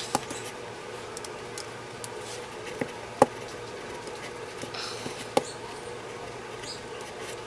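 Small screws being driven with a little Phillips screwdriver into a laser grip sight on a pistol: a few light, sharp clicks and taps of metal and plastic, the loudest about three seconds in.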